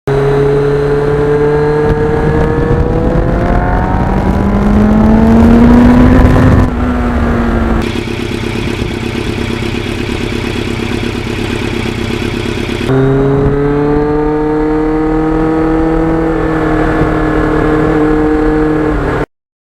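Motorcycle engine pulling up steadily through the revs for about six seconds, then backing off. A rougher, lower stretch follows, then the engine holds a steady note before cutting off abruptly near the end.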